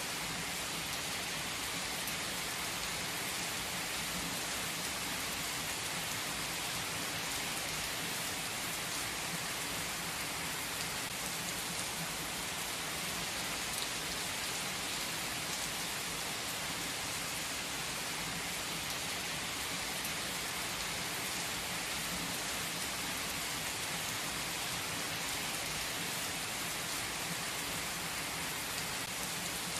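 Heavy rain pouring down onto an asphalt car park, a steady, dense hiss that neither builds nor eases.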